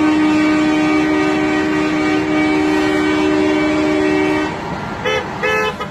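Truck air horn held in one long steady blast that cuts off about four and a half seconds in, followed by two short toots about half a second apart.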